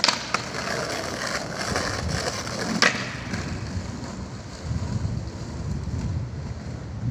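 Skateboard wheels rolling over paving in a continuous rough rumble, with a sharp clack of the board near the start and another about three seconds in.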